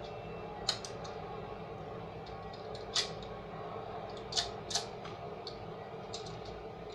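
Light, sharp clicks and taps, about ten of them at irregular intervals, as tools and glass pieces are handled during stained-glass soldering, over a steady low hum.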